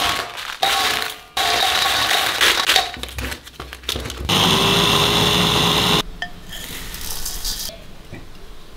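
Dried chilli peppers rattle into a stainless steel bowl. Then, about four seconds in, a small electric spice grinder runs steadily for nearly two seconds, grinding the chillies to flakes.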